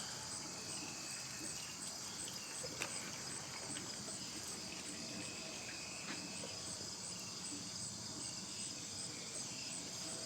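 A chorus of insects, a steady high-pitched trilling, with a couple of faint clicks.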